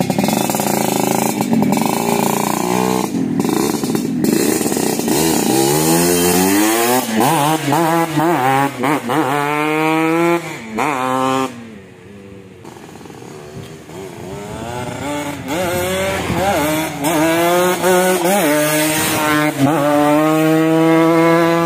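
Yamaha RX-King 135cc two-stroke single, first revving at a standstill, then accelerating hard away through the gears, its pitch climbing in steps with each shift. It fades briefly about halfway through, then comes back up the road at high revs.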